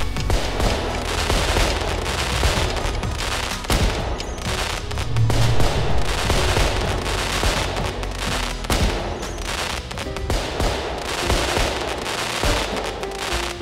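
Fireworks sound effect: a dense, continuous crackling and popping of bursting shells, with a deep boom about five seconds in.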